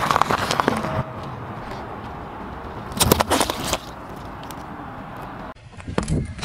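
Car tyre slowly crushing small objects on asphalt. A cluster of cracks and pops comes at the start as it rolls onto a pile of small balls, then a louder burst of crackling about three seconds in as it flattens a liquid-filled plastic bottle, and more crunching near the end, with a steady low rumble between.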